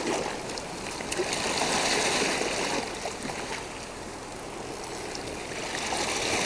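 Seawater washing over the shore rocks, a steady rushing wash that swells a little a couple of seconds in and eases off toward the end.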